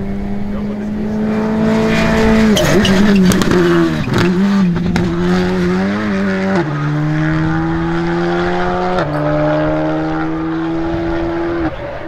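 Škoda Fabia Rally2 car's turbocharged four-cylinder engine at high revs on a rally stage. The revs are held nearly steady at first, then waver through a stretch of sharp cracks and pops as the car lifts and turns. Two gear changes follow, each a sudden step in pitch.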